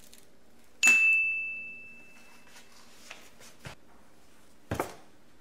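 A single high, bell-like ding, struck sharply and ringing out as it fades over about a second and a half. Near the end comes a short, quieter double rustle.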